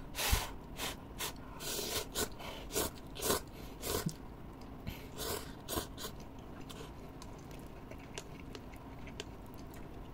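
A person eating instant cup noodles: a run of short eating and chewing noises over the first six seconds, then only faint scattered mouth sounds.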